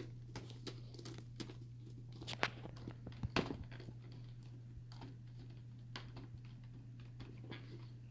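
Faint, irregular clicks and scrapes of a small Phillips screwdriver and screw against the plastic laptop casing as a screw is fitted, over a steady low hum.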